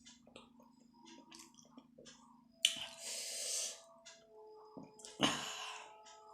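Close-up mouth sounds of eating: soft chewing and smacking, then two loud slurps of momo soup, the first about a second long near the middle and the second shorter near the end.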